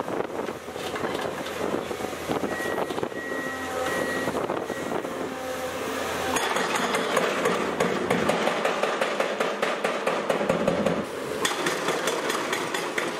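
A 4000 kg hydraulic breaker on a Komatsu excavator hammering concrete in rapid, even blows, starting about six seconds in. Before that, the excavator's diesel engine runs under mixed machine and debris noise with a few brief high squeals.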